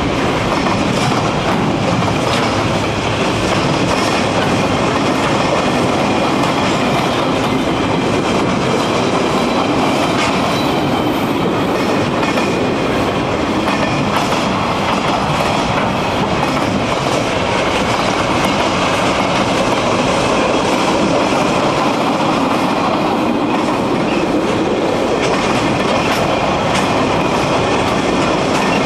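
Container flat wagons of a freight train rolling steadily past: continuous wheel-on-rail rumble with clickety-clack ticks as the wheels cross rail joints.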